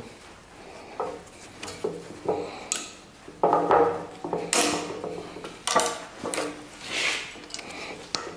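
Hand tools clinking and scraping against a steel drive shaft yoke while working a stuck U-joint loose: irregular metallic clicks and scrapes, with louder ringing clinks in the second half.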